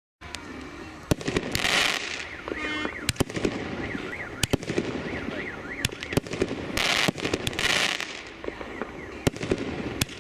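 A 36-shot, 1.2-inch consumer fireworks cake (FP B305 'Brooklyn') firing a volley: sharp launch and burst reports at irregular intervals, starting about a quarter second in, with longer hissing stretches at about two and seven seconds in.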